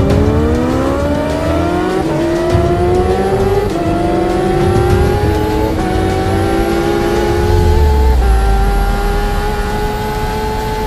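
Kawasaki Ninja H2's supercharged inline-four engine at full throttle, its pitch climbing steadily and broken by upshifts about two, four, six and eight seconds in. In the higher gears it climbs more slowly, over a heavy low rush of wind.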